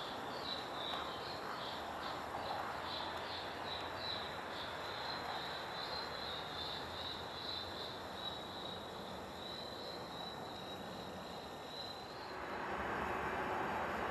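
Freight train moving through a rail yard: a steady rolling rumble with a high-pitched tone that pulses about two to three times a second, then holds steadier. The tone stops about twelve seconds in, and the sound changes to a louder, steady rush.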